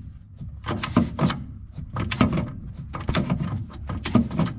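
Ratchet wrench being swung back and forth on a suspension bolt of a VW bay-window bus, giving short bursts of ratchet clicks and metal knocks in quick runs of two or three strokes with brief pauses.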